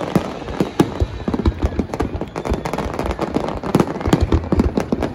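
Fireworks display: a dense, rapid stream of crackling and popping from many shells and crackle stars bursting overhead, with a few louder bangs mixed in.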